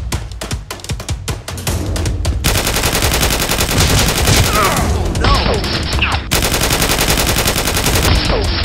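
Automatic gunfire sound effect, a fast continuous rattle, over background music with a drum beat. The firing comes in about two and a half seconds in and keeps going.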